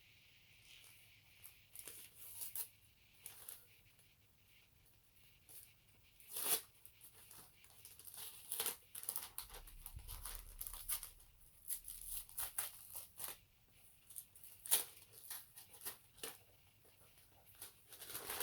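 Taped wrapping being torn and pulled off a book, heard as irregular rustling and crinkling with sharper rips. The loudest rips come about six and a half seconds in and again near fifteen seconds.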